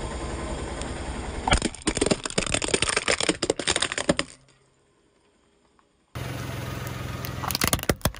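A car tyre rolls over hollow plastic toys and crushes them, giving a rapid run of cracks and snaps over the low hum of the car's engine. After a short silent gap the engine hum returns, and a second burst of cracking comes near the end as more plastic toys break under the tyre.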